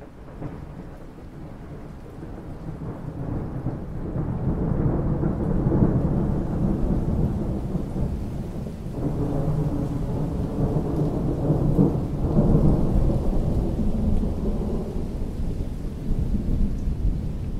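Long rolling thunder over steady rain. The rumble builds over the first few seconds and swells twice before easing toward the end.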